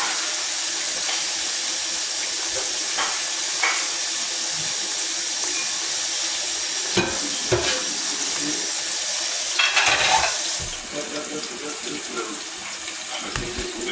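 Zucchini slices sizzling steadily in hot oil in a skillet, with a few light clicks of a utensil against the pan. About ten seconds in there is a brief louder burst of sizzling and clatter, after which the sizzle settles a little quieter.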